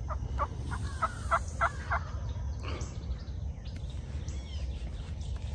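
A run of about seven evenly spaced turkey yelps in the first two seconds, swelling and then fading, followed by faint chirps of small birds.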